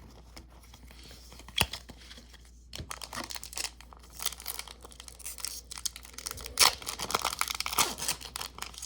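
Foil trading-card booster pack being torn open and its wrapper crinkled: a sharp snap about one and a half seconds in, then several seconds of crackling, rustling foil.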